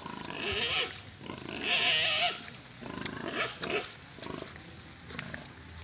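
Pig squealing in several loud calls, the loudest about two seconds in.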